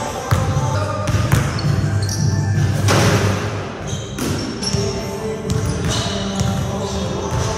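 Basketball bouncing on a hardwood gym floor, several separate sharp bounces, over background music with a steady bass line.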